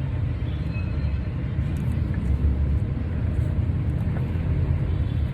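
Steady low rumble with no distinct strikes or changes.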